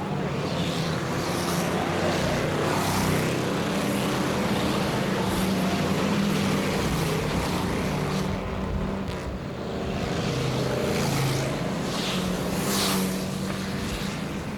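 Several stock car engines running at racing speed on a short oval track, their pitches overlapping and rising and falling as the cars go by, with a brief dip in level about nine seconds in.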